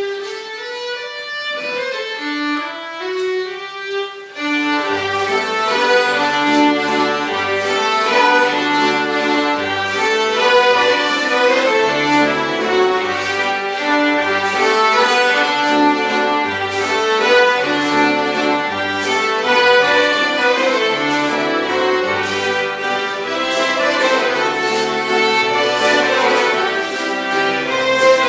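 Folk dance tune played by a small band of fiddles, accordions and double bass. The tune opens as a single melody line, and about four seconds in the bass and chords join with a steady dance beat.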